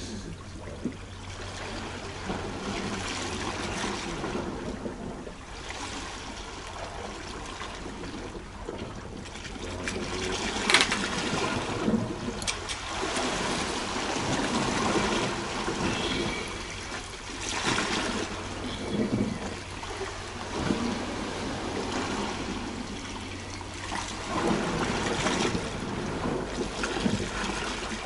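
Sea water washing and trickling against a rocky shore in uneven surges, with a single sharp click about eleven seconds in.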